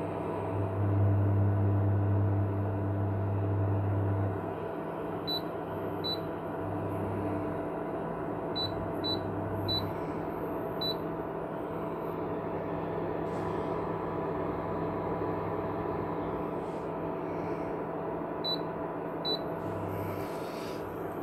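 Ailipu ALP-12 induction cooktop's touch buttons beeping as its power setting is stepped up and down: eight short high beeps, six in a run between about five and eleven seconds in and two more near the end. Under them the running cooktop hums steadily, with a low hum that is strongest for the first four seconds and then comes and goes.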